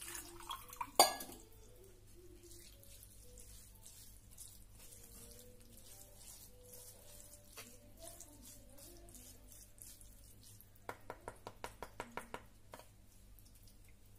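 Cooked rice ada being rinsed and stirred with a wooden spoon in a stainless steel mesh sieve over a bowl: one sharp knock of metal about a second in, then faint stirring and dripping. Near the end comes a quick run of about ten light ticks.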